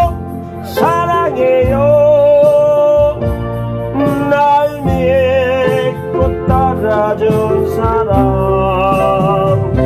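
Instrumental passage of a trot ballad played on keyboard: a sustained, wavering lead melody over a steady chordal accompaniment, with no sung words.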